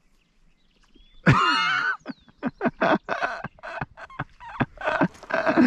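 An excited human shout, then a string of short, uneven vocal bursts.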